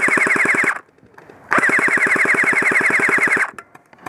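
An airsoft rifle, the player's G4-A1, firing two bursts on full auto. The first burst cuts off just under a second in, and the second lasts about two seconds, each a rapid even clatter of roughly a dozen or more shots a second.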